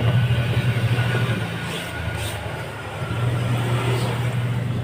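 Laundry machine running with a steady low motor hum that dips briefly about two and a half seconds in, then picks up again.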